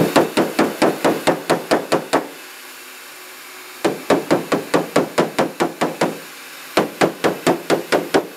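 Body hammer tapping rapidly on a dented aluminium car hood, about six light blows a second, in three runs with short pauses between, as the dents are worked out of the panel.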